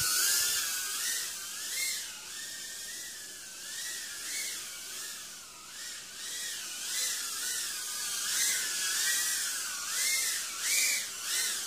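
Small brushless FPV quadcopter in flight: its motors and propellers whine, the pitch rising and falling again and again with the throttle, over a steady airy hiss.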